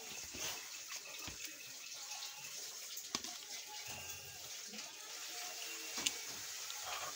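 Steady hiss of running water, with sharp clicks about three and six seconds in.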